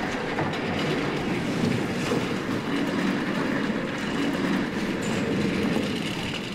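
Steady, indistinct hubbub of a crowded classroom: many people moving about among the desks and chairs and murmuring at once, with no single voice standing out.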